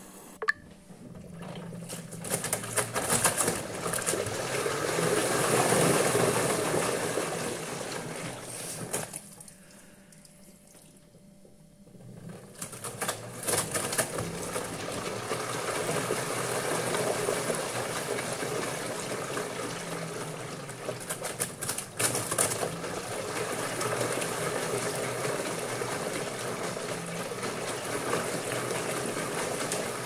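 LG front-loading washing machine's drum tumbling a load of wet towels with the door open, water sloshing and splashing in swells. A sharp click comes just after the start, and the drum pauses for about three seconds near the middle before turning again.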